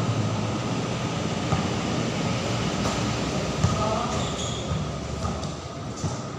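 Background noise of a basketball game on a covered outdoor court: a steady rumbling noise with faint voices and a few sharp knocks, the loudest about three and a half seconds in.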